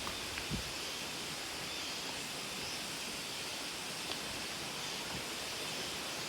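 Steady rush of flowing water from Tangyo Falls, a mountain waterfall, heard through the forest, with a few faint ticks over it.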